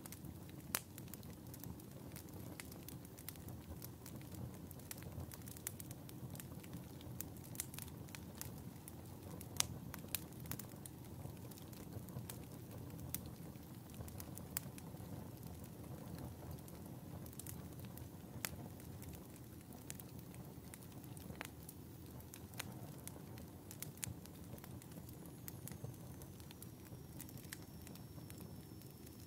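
Fire burning in a fireplace, crackling: a steady low rush of flames broken by frequent irregular sharp pops and snaps. A faint high whistle slides slightly downward near the end.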